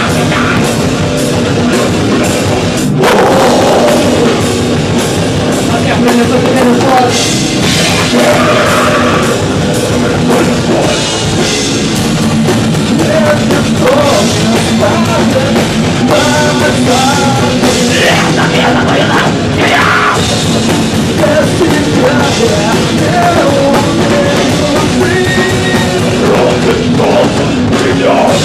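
A live heavy rock band playing loudly: drum kit with cymbals, electric bass and guitar.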